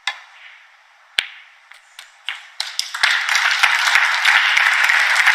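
A snooker cue strikes the cue ball with a sharp click, and about a second later a second sharp click of ball on ball. Scattered claps follow and swell into steady audience applause about three seconds in.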